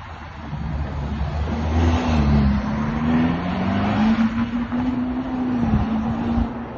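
Ferrari California T's 3.9-litre turbocharged V8 engine pulling away, its note rising in pitch, then holding steady, with a brief dip about six seconds in.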